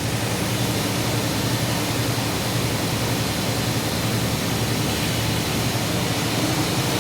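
Vehicle engine running with a steady low hum under an even hiss, constant throughout.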